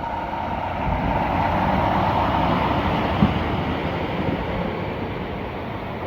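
A truck driving past through standing floodwater, its tyre and water-spray noise swelling to a peak about two seconds in and then fading away.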